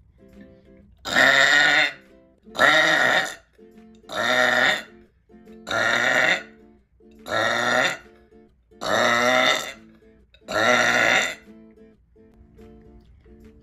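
A person burping loudly seven times in a row, each burp short and deep, about one and a half seconds apart. Quiet background music plays between the burps.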